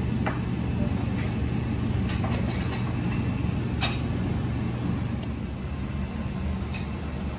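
Steady low mechanical hum of kitchen machinery, with a few light clinks of utensils against stainless steel, the clearest about four seconds in.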